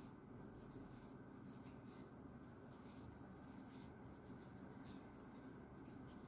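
Near silence: faint, irregular rustling and scratching of a crochet hook pulling yarn through stitches, over a low steady room hum.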